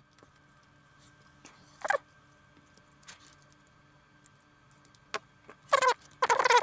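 Flush cutters snipping into a GoPro Hero 6's plastic casing: a few sharp, scattered clicks, then near the end a loud squeaking creak of the plastic as it is cut and pried apart.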